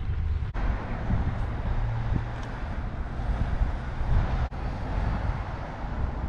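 Wind buffeting the microphone: a low rumble that rises and falls, with two brief dropouts.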